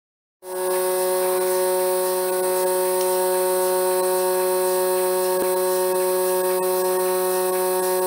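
Bucket milking machine's electric vacuum pump running with a steady hum while milking. It starts just after the beginning, and a single faint click comes about five seconds in.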